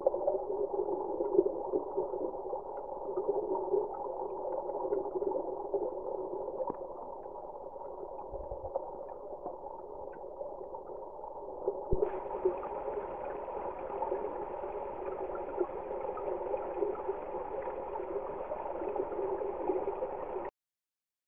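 Flooded creek water rushing steadily, heard through a trail camera's microphone. A click comes a little past halfway, after which the rush sounds brighter. It cuts off abruptly near the end.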